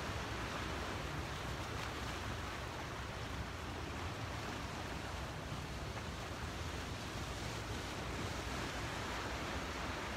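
Steady, even rushing noise of wind and water at a rocky seashore, with no distinct events.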